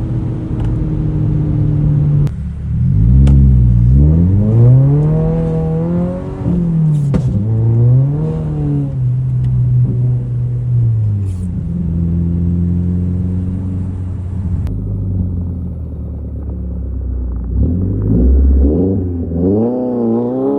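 Straight-piped, tuned Subaru WRX (VB) turbocharged 2.4-litre flat-four revving, its pitch climbing and dropping several times. It then holds a steady drone for several seconds and climbs again near the end.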